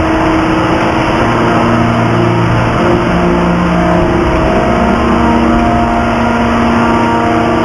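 Hydraulic free forging press machinery running: a loud, steady mechanical drone carrying several held tones that step to new pitches every second or two.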